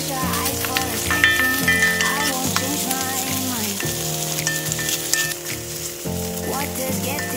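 Sliced beef and garlic sizzling in hot oil in a wok over high heat, stirred with a wooden spatula. Background music with a simple melody plays along.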